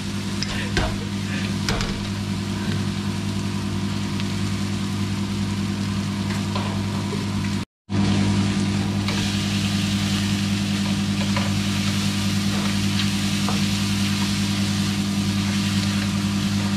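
Noodles and onions stir-frying in a steel wok: light sizzling with scattered scrapes and taps of a slotted spatula on the pan, over a steady low hum. The sound cuts out for a moment about halfway through.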